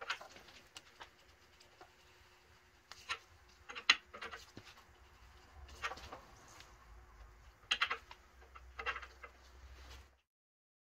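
Wrench on the crankshaft nose of a Ford Coyote 5.0 V8 long block as the crankshaft is turned by hand: scattered clicks and knocks in small clusters every second or two. The sound cuts off abruptly near the end.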